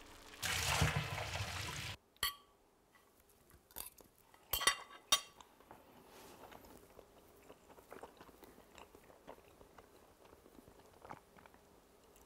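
A pot of water boiling, a loud bubbling hiss that stops abruptly about two seconds in. After that a quiet room with a few light clicks and taps.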